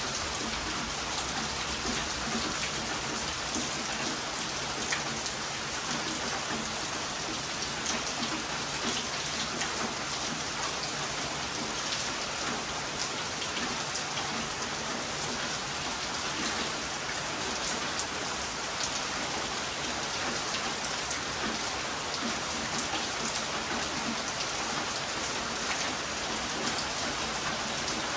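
Heavy rain falling steadily: a dense, even hiss with many small drop ticks.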